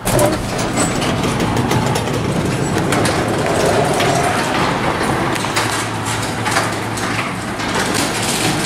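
Sectional garage door opening, its panels and rollers rattling steadily along the metal tracks. The rattle starts suddenly and continues as the door rises.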